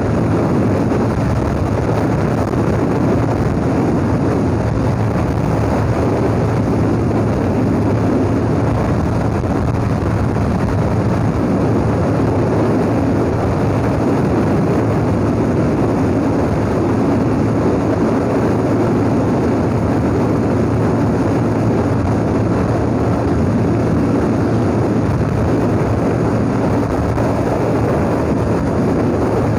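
Motorcycle running steadily at highway cruising speed, its engine drone mixed with wind noise on the microphone.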